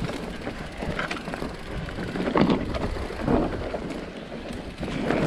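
Mountain bike on a rough trail descent: steady wind rumble on the camera microphone mixed with tyre crunch and rattle, louder in a few surges.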